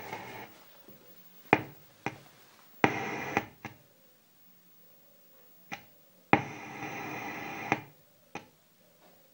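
Creative GigaWorks G500 subwoofer making its strange noise: sudden loud pops, three of which open a buzzing burst lasting from half a second to about a second and a half that cuts off with another pop, with single pops between the bursts.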